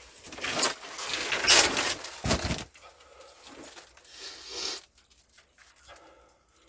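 Scraping and rustling of a person moving through a narrow cave passage, clothing and body rubbing on rock, with a heavy bump about two and a half seconds in and another shorter scrape near the end.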